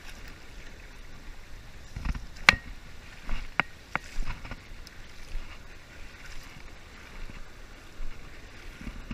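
Steady rush of river water pouring over a low dam weir, with low wind rumble on the microphone. A few sharp clicks come between about two and a half and four seconds in, the first the loudest.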